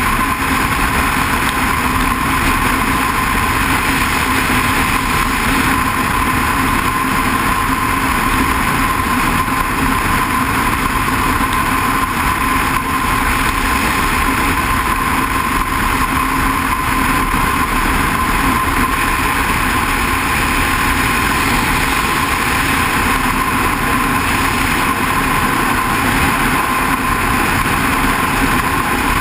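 Motorcycle cruising at a steady speed on the open road, heard from a camera mounted on the bike: a constant engine drone under loud, even wind and road noise. It starts abruptly and holds steady throughout.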